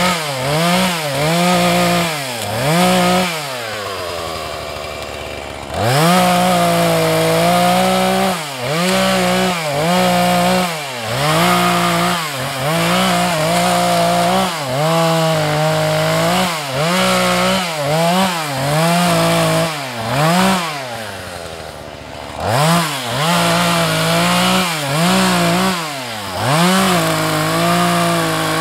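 Husqvarna 435 two-stroke chainsaw revved in short bursts about once a second while cutting branches off a felled pine, the engine note climbing and falling with each cut. Twice it drops back to idle for a couple of seconds.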